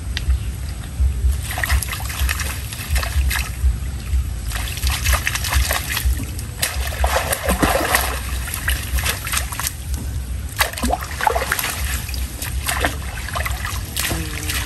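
Fish trap being lifted and emptied in shallow water: irregular splashing and water trickling off it, with scattered sharp knocks and rattles over a steady low rumble.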